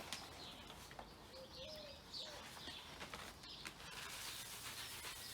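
Faint garden birds chirping and calling, with a short, low, steady call about one and a half seconds in.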